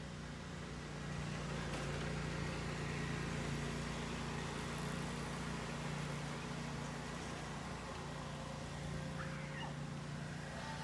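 Steady low mechanical hum over a background hiss, with no distinct sound from the swan.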